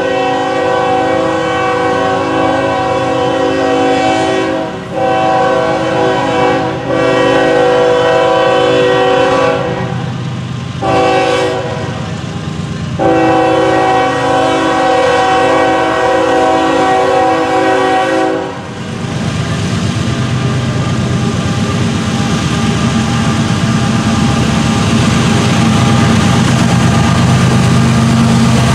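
Union Pacific GE AC45CCTE locomotive's multi-chime air horn sounding a series of long and short blasts as the train approaches. The horn stops about 18 seconds in, and the low drone of the lead diesel locomotives grows as they come up and pass.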